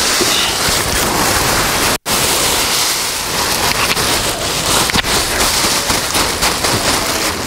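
Black plastic garbage bag rustling and crinkling as it is emptied into a compost bin, a loud, dense crackle broken by a momentary silence about two seconds in.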